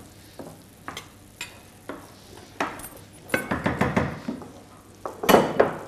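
Kitchen utensils clinking and scraping against dishes: a metal spatula and knife in a glass baking dish and a wooden spoon stirring pilaf in a pan. Scattered knocks give way to a busier run of clinks midway, and the loudest clatter comes about five seconds in.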